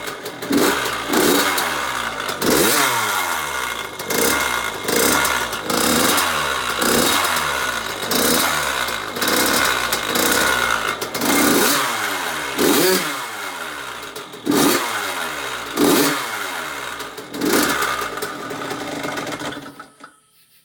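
Yamaha YZ85's single-cylinder two-stroke engine, freshly rebuilt, being revved in repeated blips, each rising and falling, about one every second or so. It cuts off about a second before the end.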